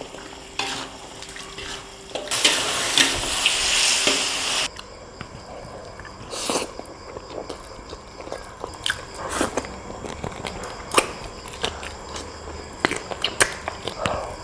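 Eating sounds: biting and chewing with scattered sharp clicks and short wet smacks. About two seconds in, a loud hiss runs for roughly two seconds and then cuts off suddenly.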